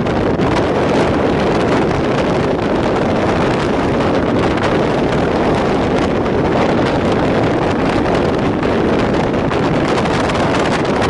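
Wind buffeting the microphone over the steady running noise of a moving passenger train.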